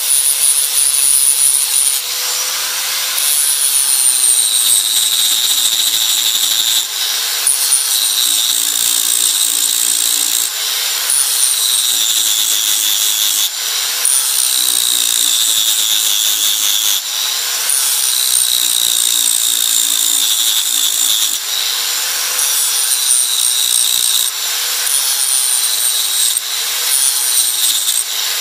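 Angle grinder grinding the steel head of a hammer held in a vise, taking it back to bare metal. The motor whine sags in pitch under load on each pass and recovers between passes, every two to three seconds.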